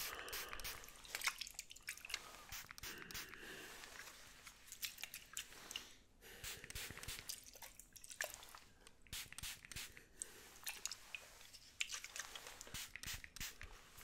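Close-miked spray bottle misting water and hands working near the microphone: an irregular run of soft crackles, clicks and short hissy sprays.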